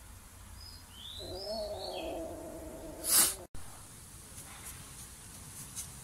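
A kitten gives one long, wavering meow lasting about two seconds. It ends in a short, loud burst of noise that cuts off suddenly. A few small bird chirps sound faintly near the start.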